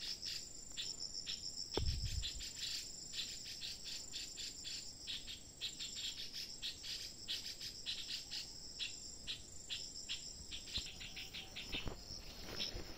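Forest insects chirping in short, rapid, high-pitched pulses, several a second, over a steady high whine. A dull low thump about two seconds in.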